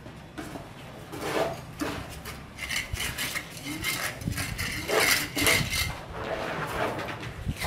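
Steel bricklaying trowel scraping and scooping wet cement mortar from a tray, then spreading and scraping it along the top of a hollow clay brick wall, in a series of irregular rasping strokes.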